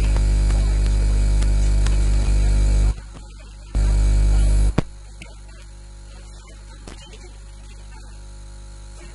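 Loud electrical mains hum with a buzz on the audio line. It cuts out abruptly a little before 3 s, comes back for about a second near 4 s, then drops to a faint steady hum.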